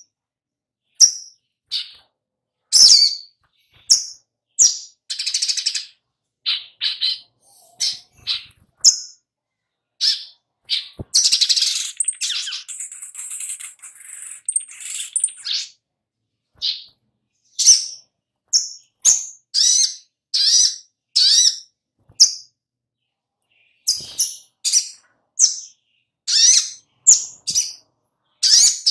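Male sunbird (sogok ontong) calling: a string of short, sharp, high chirps a fraction of a second apart, with a longer run of rapid twittering song from about eleven to fifteen seconds in.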